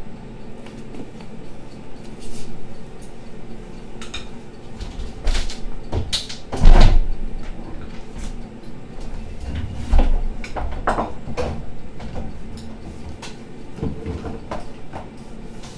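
Wooden rolling pin rolling out kesra dough on a countertop: irregular rolling rumbles, knocks and taps, with one loud thump a little before the middle.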